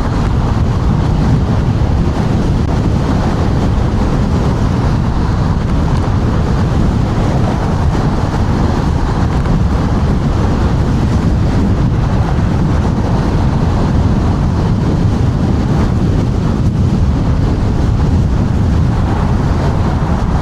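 Loud, steady wind noise buffeting the rider's microphone while riding an electric scooter through strong wind, a deep, even rumble with no breaks.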